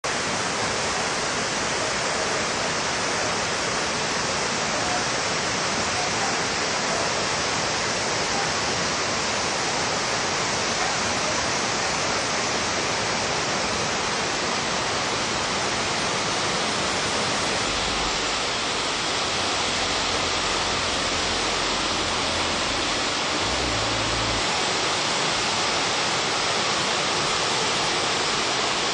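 Hot spring water pouring steadily into a bath: an even, unbroken rush of splashing water.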